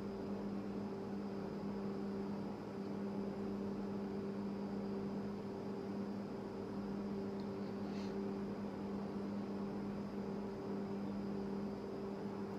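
Steady low hum, a constant droning tone with a faint hiss beneath it, with one faint click about eight seconds in.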